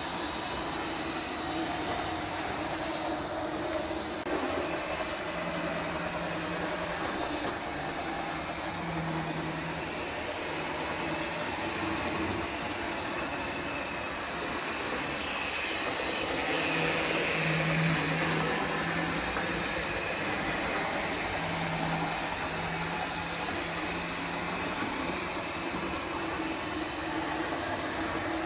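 Model railway locomotive running along the track: a steady whirr of its small electric motor and wheels on the rails, swelling and rising a little in pitch for a few seconds past the middle.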